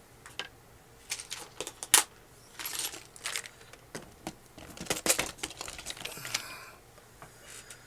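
Small hard RC truck parts clicking and rattling as they are sorted by hand, with brief rustling twice. The sharpest click is about two seconds in.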